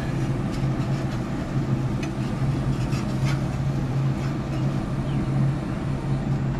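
Steady low mechanical hum, like a running motor or fan, with a few faint ticks over it.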